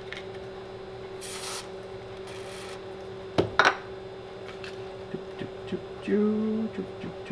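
Two short hisses of DeoxIT D5 contact cleaner sprayed from an aerosol can onto switch contacts to clean them, about a second in and again about two seconds in. A few light clicks of small switch parts being handled follow, over a steady low hum.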